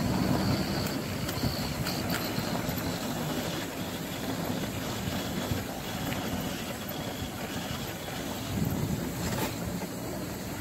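Power wheelchair driving over interlocking paving stones: a steady rumble and rattle of the tyres and casters on the pavers, with a few light clicks. No grinding comes from the reduction gearboxes, freshly topped up with lithium grease.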